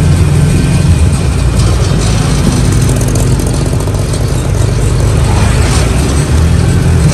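Engine of a small open canopied vehicle running steadily under way, with a low hum under constant road and wind noise.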